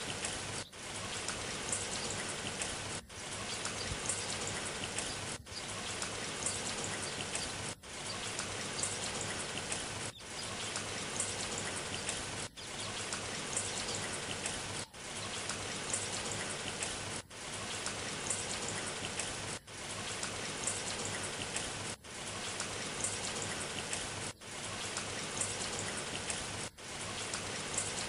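Rain sound effect: a steady patter of rain, cut by a brief dropout about every two and a half seconds.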